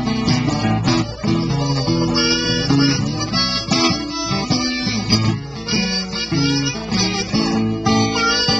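Blues harmonica played in the pre-war style, cupped against a handheld microphone and amplified, with a guitar accompanying.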